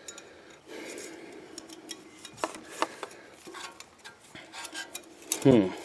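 Light metal clinks and taps from metal parts being handled, with a few sharper clicks. A short vocal sound comes near the end.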